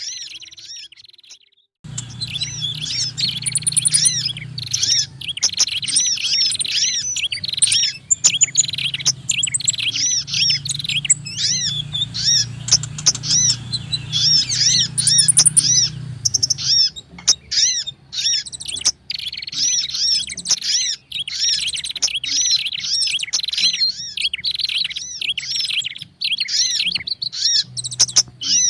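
Bird-lure recording of small songbirds calling: a dense, layered chatter of rapid, repeated high chirps from prinias, sunbirds and sogon birds, mixed together. It starts about two seconds in after a brief silence, with a low hum underneath for about the first half.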